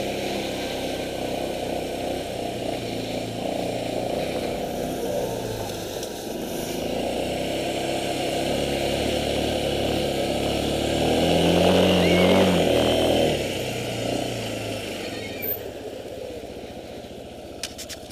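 Engine of a small towing vehicle running under load, its pitch rising and falling with the throttle. It is loudest about twelve seconds in, then dies down toward the end.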